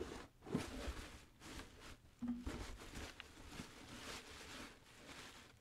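Plastic trash bags rustling and crinkling as a hand rummages through garbage in a dumpster, with a couple of soft knocks.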